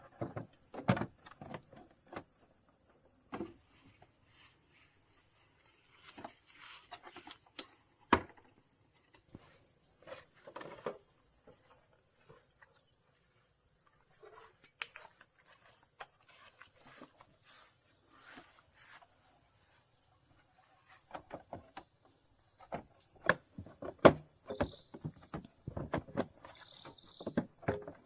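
Steady high-pitched drone of insects, with scattered sharp clicks and knocks, several in a row near the end.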